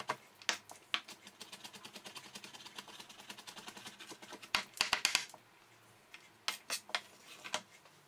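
Chef's knife mincing garlic on a plastic cutting board: a run of rapid light taps of the blade on the board, with bursts of louder chops about halfway through and again near the end.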